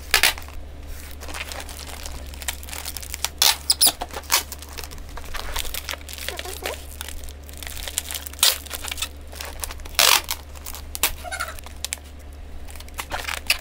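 Brown packing tape pulled off its roll in several short rasping rips, mixed with the crinkling of clear air-column bubble wrap being turned and taped.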